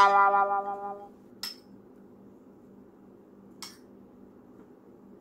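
A held pitched tone fades out about a second in. Then a metal spoon or fork clinks lightly against a ceramic dish twice, about two seconds apart.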